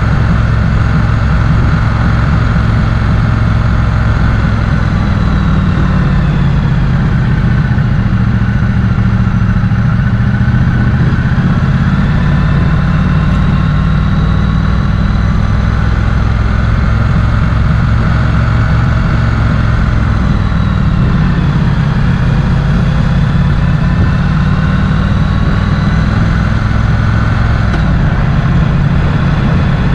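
Motorcycle engine running steadily while riding, its pitch slowly rising and falling a few times as the speed changes.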